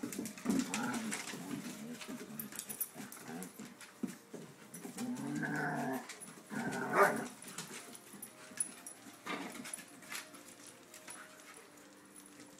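Dogs vocalising in short, irregular bouts, loudest around five to seven seconds in, with scattered short clicks between, growing quieter near the end.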